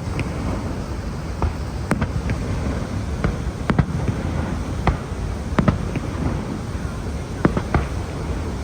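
Fireworks going off: about a dozen sharp bangs and pops at irregular intervals over a steady low rumble.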